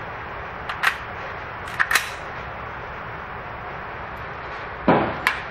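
Spikes Tactical AR-15 in 5.56 being brought back into action after a failure to feed: two sharp metallic clacks of the rifle being loaded and charged about a second apart, then a single shot near the end.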